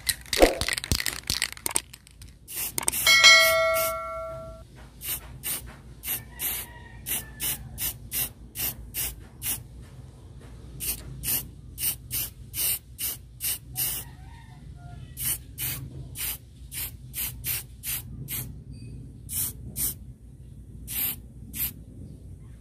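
Aerosol spray-paint can sprayed in many short hissing bursts, a few a second, on freshly welded steel. About three seconds in, something metallic is struck and rings for about a second and a half.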